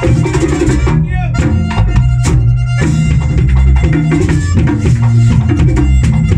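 Live típico band playing: button accordion over tambora and conga rhythm, with saxophone and keyboard. The band thins out about a second in and the full groove returns about three seconds in.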